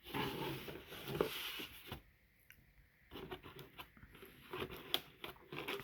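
Handling of a plastic model car kit and its packaging: a rustle of crinkling wrapping for about two seconds, then scattered light clicks and taps of plastic parts and box.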